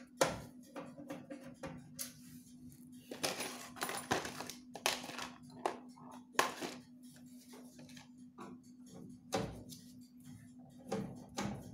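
Irregular clicks, knocks and clatter, as of hard objects being handled, over a steady low hum.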